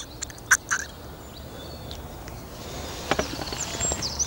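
Two sharp clicks about half a second in, then rustling that grows louder, with a songbird starting a run of quick, high chirping notes near the end.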